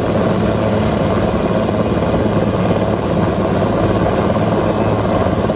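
Helicopter flying, a loud, steady rotor and engine drone.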